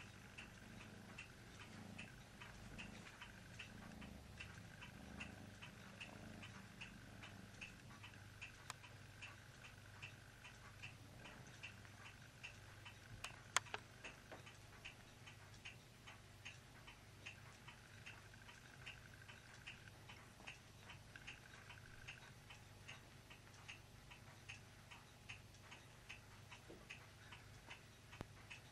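Quiet room with a steady, even ticking, about three ticks a second, and one sharp click about halfway through.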